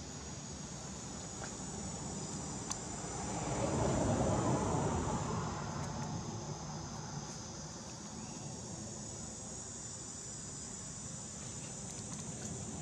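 Outdoor ambience of insects droning steadily at a high pitch, with a broad rushing noise that swells and fades about 3 to 6 seconds in.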